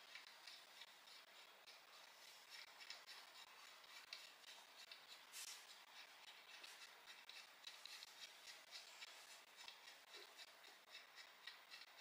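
Very faint handling sounds: small clicks and light rubbing as a hand grinder is fitted into the mount of its motorised stand, with one slightly sharper tick about five and a half seconds in.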